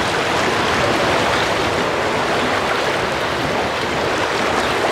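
Stream water rushing, a loud, steady, even hiss of running water.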